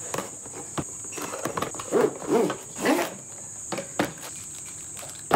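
A cardboard toy-gun box being opened and the plastic toy shotgun handled out of it: cardboard and packaging scraping and rustling, with several knocks and clicks, the sharpest near the end.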